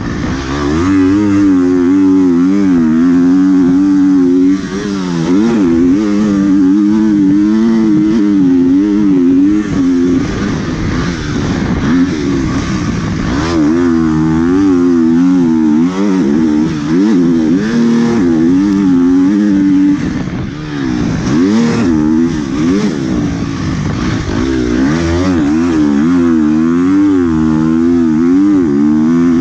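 Motocross bike engine heard from on the bike, revving hard and easing off over and over as the rider works the throttle around the track, its pitch wavering up and down, with brief drops in a few places.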